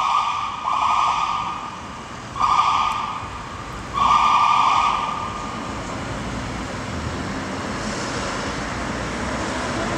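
Emergency-vehicle siren on a fire chief's car sounding in short steady-pitched blasts, four of them in the first five seconds. After that only a steady hum of city traffic remains.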